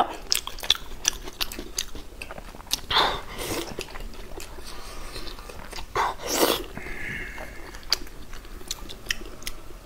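Close-miked mouth sounds of eating braised fatty pork: wet smacking and chewing with many short sticky clicks. There are a couple of louder mouth sounds about three and six seconds in.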